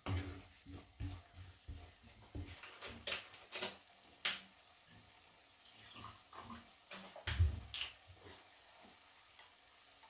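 Wooden spoon stirring and scraping a thick onion and tomato-paste mixture around an enamelled cast-iron pot, with a short scrape or knock about every half second for the first four seconds. A few more knocks and one dull thump follow a few seconds later.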